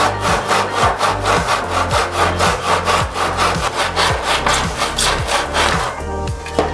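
Fine-toothed hand saw cutting through a thin wooden board in a plastic miter box, in quick, even back-and-forth strokes that stop about a second before the end.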